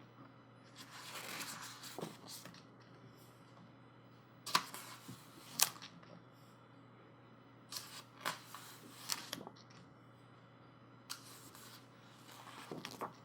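Pages of a photo book being turned by hand: a series of short paper swishes and flicks, several seconds apart, with a couple of sharper snaps in the middle.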